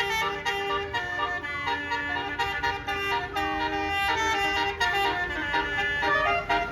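A bus's basuri multi-tone musical air horn (telolet) playing a melody of held notes that step up and down, with a low engine rumble underneath.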